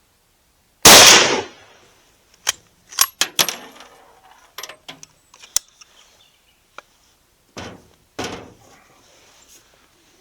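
A Mauser K98 bolt-action rifle in 7.92×57mm fires one loud shot about a second in, and the report trails off briefly. A run of sharp metallic clicks and clacks follows as the bolt is worked, with two louder knocks near the end.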